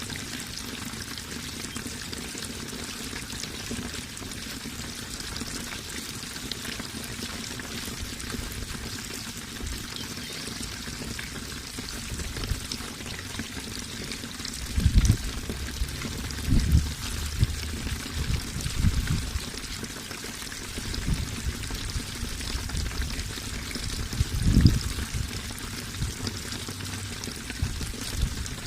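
Running water pouring and trickling steadily, with several short low thumps from about halfway through.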